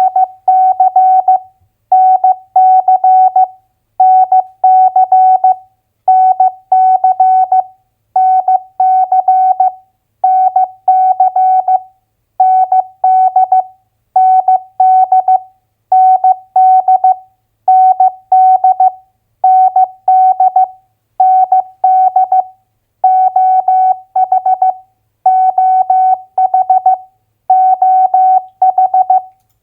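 Morse code at 15 words per minute as a single-pitch beep tone keyed into dots and dashes, sending two-letter US state abbreviations one after another, a new group about every two seconds with a short pause between each.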